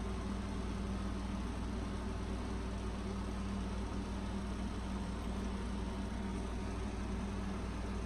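A steady low hum with an even hiss over it that does not change throughout.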